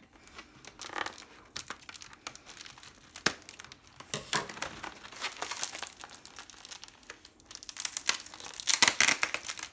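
Plastic air-column bubble wrap crinkling and crackling as it is handled and pulled open, in irregular bursts that grow loudest near the end.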